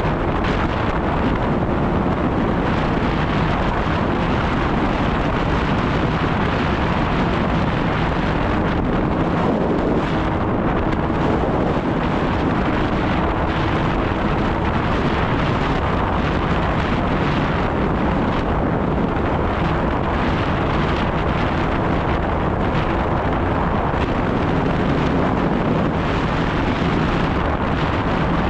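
Snowmobile engine running steadily, with heavy wind noise on the microphone.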